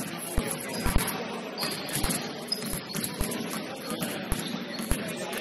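Basketball bouncing on a gym floor in irregular thumps, about one or two a second, over the hubbub of players in the gym, with a few short high squeaks.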